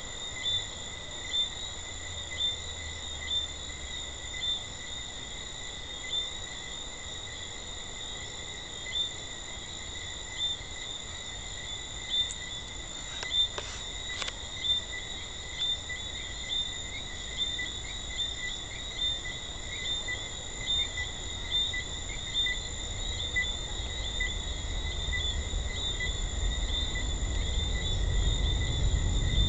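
Night chorus of Jamaican treefrogs: short, high whistled notes at about one a second over a steady high-pitched ringing drone. A few faint clicks come about halfway, and a low rumble builds near the end.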